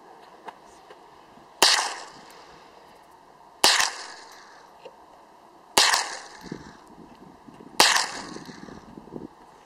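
Ruger 10/22 .22 rimfire rifle firing four single shots about two seconds apart, each a sharp crack with a short echo trailing off.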